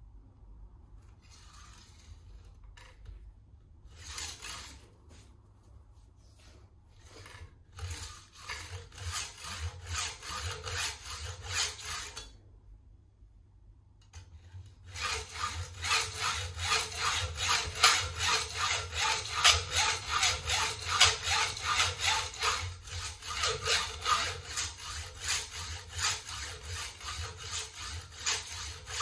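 Hand hacksaw sawing back and forth through a workpiece held in a bench vise. A few hesitant strokes start the cut, then a steady run of strokes. After a pause of about two seconds near the middle, faster, louder, regular sawing carries on.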